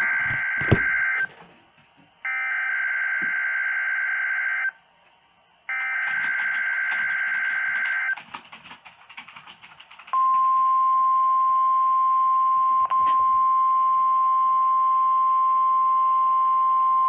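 NOAA Weather Radio Required Weekly Test tones: the end of one digital SAME header data burst and two more full bursts, each a harsh warbling buzz of about two and a half seconds with a one-second gap between them. About ten seconds in, the steady 1050 Hz warning alarm tone begins and holds.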